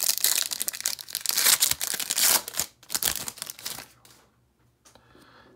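Trading-card pack wrapper being torn open and crinkled by hand, a dense crackling rustle for about two and a half seconds, then a few softer rustles and clicks as the cards are slid out, fading to quiet about four seconds in.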